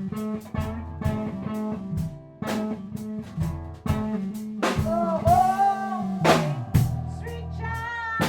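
Live rehearsal of a blues-rock band: drum kit with regular snare and rimshot hits, bass guitar and guitar playing together, with sliding, bent notes a few seconds in and again near the end.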